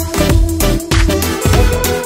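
Background electronic music with a deep bass line and a steady beat.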